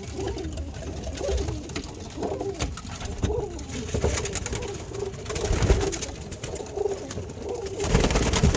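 Birmingham roller pigeons cooing repeatedly in the loft, over a scatter of clicks, knocks and rustling that grows loudest near the end.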